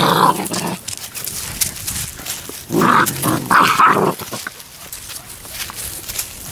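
Seven-week-old Labrador retriever puppies vocalising as they play, in two short bouts: one at the start and another about three seconds in.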